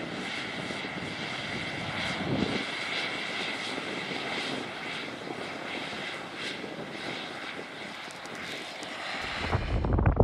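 John Deere 9RX 590 quad-track tractor pulling a DB60 planter across a field, its diesel engine a steady drone heard from a distance. Near the end, low wind rumble on the microphone takes over.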